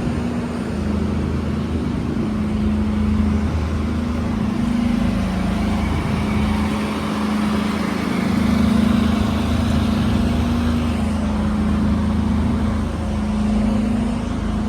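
Fire engine's diesel engine running steadily, a continuous low hum that wavers slightly in pitch.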